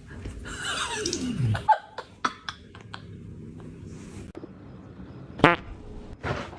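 A fart-like noise about a second in, sliding down in pitch, followed by a few sharp clicks and a short rasping buzz near the end.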